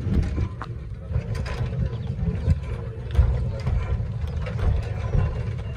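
Replica of the early steam locomotive Puffing Billy running, with the low rumble of its wheels and a stream of irregular metallic clanks from its beams and rods.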